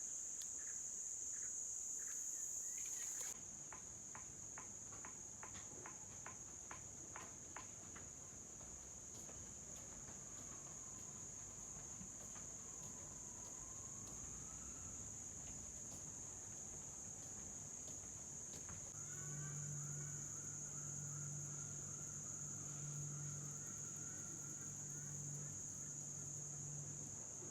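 Steady, high-pitched chorus of forest insects. A run of faint clicks comes a few seconds in, and a low steady hum joins it about two-thirds of the way through.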